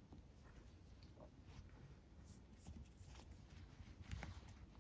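Near silence with faint rustling and small ticks: nylon paracord and thread being handled as a doubled lace thread is pulled tight through the cord with a needle.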